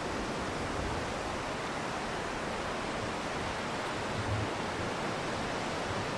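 Steady, even wash of surf breaking on a sandy beach.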